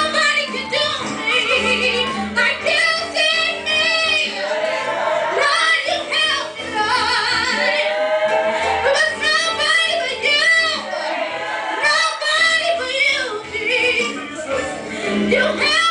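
A woman singing a slow gospel solo into a handheld microphone, amplified over a loudspeaker, with long held notes and a wide vibrato.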